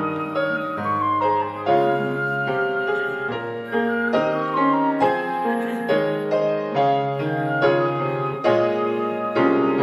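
Piano and flute playing an instrumental passage of a choral anthem, with piano notes struck every half second to second under a higher held flute melody.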